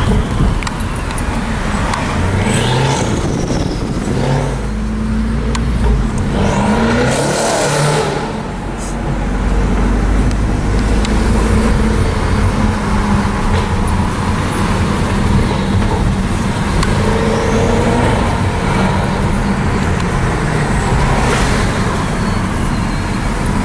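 Car engines in street traffic, running continuously, with several revs and cars passing by.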